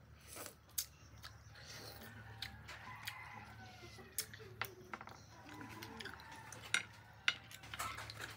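Fried clam shells clicking and clinking against each other and the plate as the clams are eaten, in a string of short, sharp, irregular clicks.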